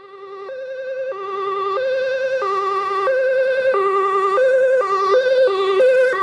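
Dutch ambulance two-tone siren on an emergency run, alternating between a higher and a lower note about every two-thirds of a second, each note with a slight warble. It grows louder over the first couple of seconds as the Mercedes-Benz ambulance approaches.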